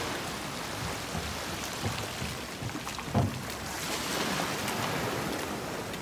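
Harbour water washing and lapping against a flooded concrete boat ramp and floating dock, a steady noisy wash, with a single low thump about three seconds in.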